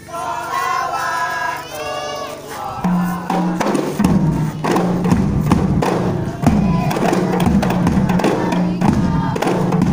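A group of voices singing together, then about three seconds in a troupe of hand-held rebana frame drums and a large bass drum strikes up a fast, steady beat, with the singing and crowd voices carrying on over the drums.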